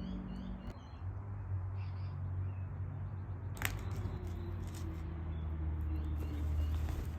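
Outdoor background: short, repeated high bird chirps that fade out within the first second, then a steady low hum with one sharp click about three and a half seconds in.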